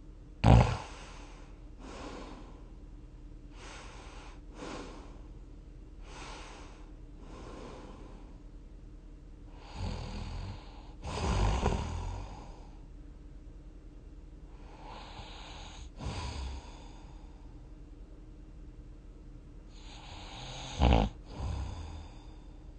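Someone snoring while dozing: soft paired in-and-out breaths every few seconds, with a louder, longer snore about halfway through and a short sharp snort at the start and again near the end.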